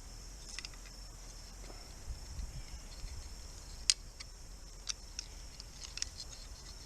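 Steady high-pitched insect chirring, typical of crickets, with a few scattered sharp clicks; the loudest click comes about four seconds in.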